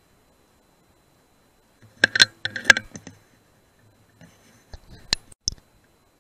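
BSA R10 .177 PCP air rifle fired about two seconds in: a short, sharp shot. It is followed straight away by a quick cluster of sharp metallic clicks, and a few lighter clicks come later.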